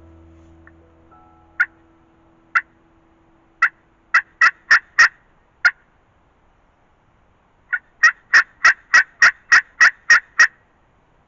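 Hen turkey yelps: three single sharp yelps about a second apart, then a quick run of four, then after a pause a longer run of about ten at roughly three a second.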